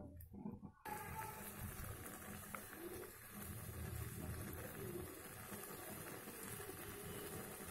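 Maggi noodles simmering in water in an aluminium kadai as they are stirred with a spatula: a faint, steady hiss that starts abruptly about a second in.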